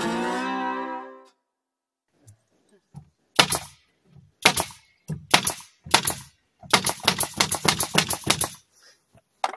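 Guitar music fades out in the first second, then a pneumatic nail gun fires nails into wooden boards: four single shots about a second apart, then a quick run of shots lasting about two seconds.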